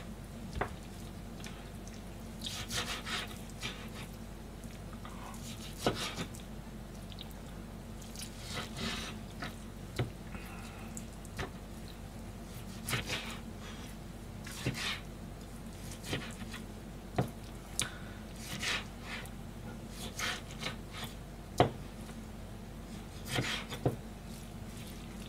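Kitchen knife cutting raw chicken thigh on a plastic cutting board: irregular sharp taps of the blade on the board and short scraping slicing strokes every couple of seconds, over a steady low hum.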